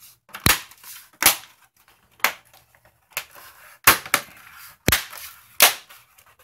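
Plastic back cover of a Planar PX2210MW monitor snapping onto the case as its clips are pressed home: about seven sharp plastic snaps, roughly one a second, with smaller clicks between.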